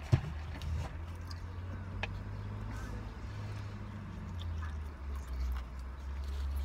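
A man biting into and chewing a burger, with its paper wrapper crinkling, over a steady low rumble inside a car. There is one sharp knock just after the start.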